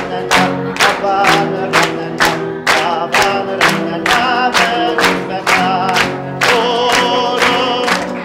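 A choir singing a lively song while the audience claps along in time, about two claps a second.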